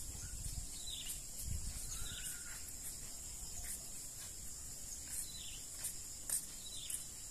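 Steady high-pitched insect chorus, with birds giving short, falling chirps every second or two.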